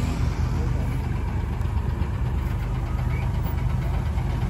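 Heavy truck's diesel engine idling steadily, a low even drone.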